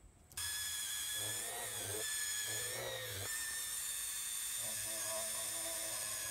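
Handheld high-speed rotary tool drilling tiny holes through a black plastic scooter panel, a steady high whine that starts suddenly just under half a second in. Its sound shifts at times as the bit works through the plastic.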